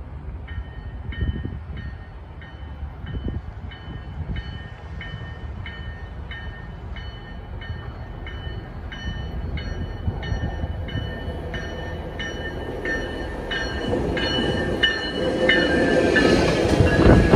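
A GO Transit bi-level cab car's bell ringing steadily, a little under two strikes a second, as the train comes into the station, growing louder as it nears. The rumble of the train's wheels builds up beneath it and is loudest as the cab car passes close near the end.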